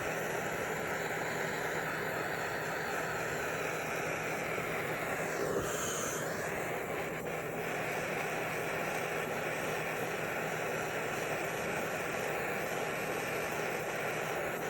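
Jeweller's soldering torch flame running with a steady hiss while heating small silver jump rings, with a brief change in tone about six seconds in.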